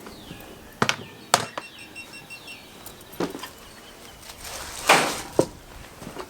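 Scattered knocks and clunks, about five of them with the loudest near the end, from tools and lumber being moved around during repair work on a shed wall.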